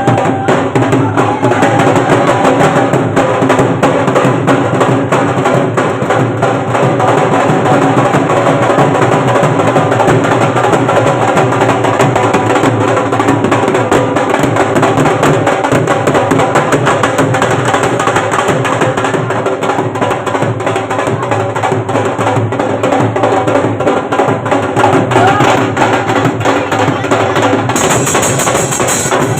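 Music with drums and percussion playing continuously.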